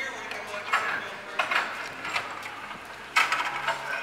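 Scattered metallic clanks and knocks, the sharpest about three seconds in, over a low steady hum.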